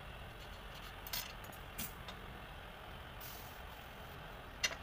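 A few light, sharp taps of soldering tools on a pierced brass sheet, the loudest near the end, and a brief hiss about three seconds in as the soldering iron goes onto the brass. A steady low rumble runs underneath.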